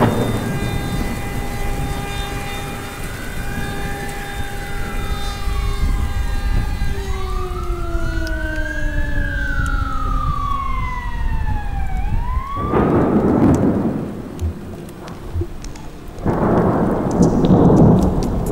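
Heavy rain pours down while an emergency vehicle's siren wails, rising and falling twice. The siren breaks off about two-thirds of the way through, and two loud claps of thunder follow, a few seconds apart.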